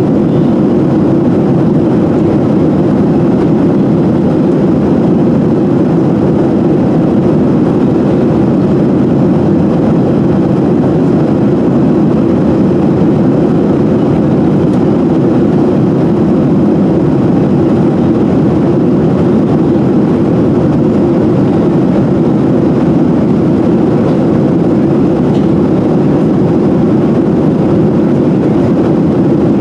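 Steady cabin drone of a Boeing 737-700 in flight, heard from inside the cabin: the twin CFM56 jet engines and the rushing air make an even, low rumble with no change.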